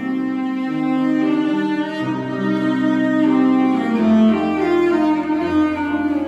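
Cello playing long bowed notes in a classical piece, accompanied by a digital piano.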